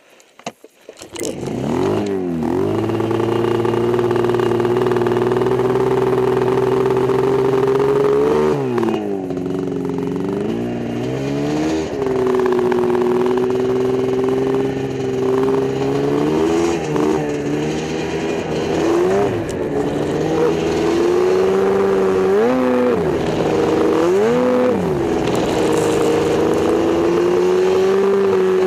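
A small engine running close by at high revs from about a second in, its pitch dropping and rising again several times as the throttle changes.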